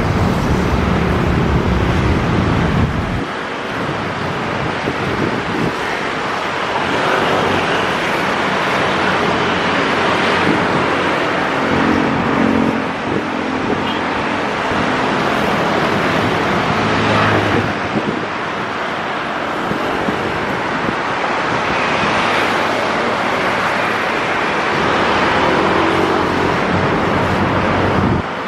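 Steady road traffic noise, with a deeper rumble for the first three seconds.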